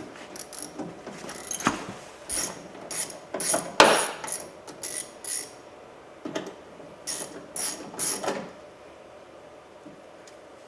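Ratchet handle with a Phillips bit clicking in quick bursts as it backs out a door latch screw. The clicking stops near the end.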